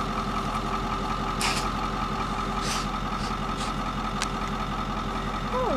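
Vehicle engine idling steadily, a constant hum, with a few short faint rustling sounds over it.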